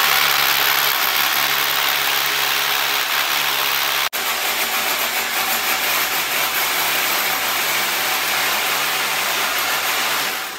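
Electric power tool motor running continuously and loudly, with a steady hum under a dense grinding hiss, a momentary break about four seconds in, and stopping near the end.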